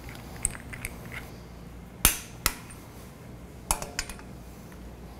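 Sharp metallic clicks of a torque wrench and its socket on the flange bolts as they are tightened to final torque: two clicks about half a second apart about two seconds in, then a short cluster of clinks near four seconds.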